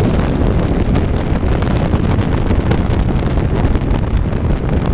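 Loud, steady wind buffeting on the microphone of a vehicle moving at speed, with the vehicle's running noise underneath.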